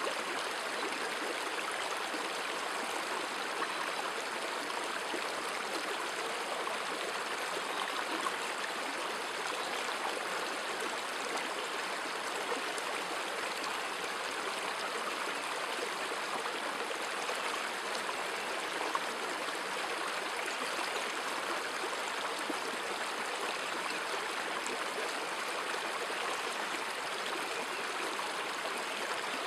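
A stream running steadily: an even rush of flowing water.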